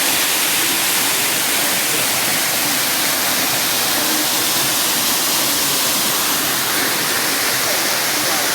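Waterfall: falling water making a steady, dense rush with no let-up.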